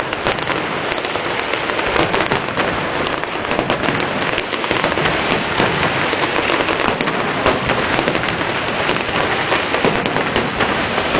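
Aerial fireworks shells bursting, with many bangs and crackles in quick succession without a pause.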